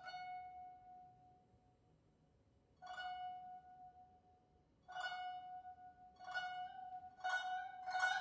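Solo guzheng plucking one high note over and over, each pluck left to ring. The plucks come about two seconds apart at first, then closer together and louder toward the end.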